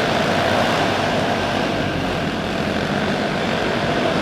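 A pack of dirt-track racing karts' small engines running together at full throttle as the field takes the green flag, a dense steady engine drone.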